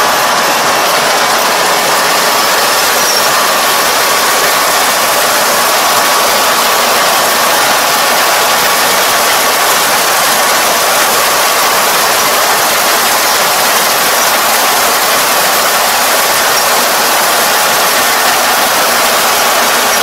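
Rice combine harvester running steadily with its engine and threshing gear working, a loud, even mechanical din with a faint steady hum.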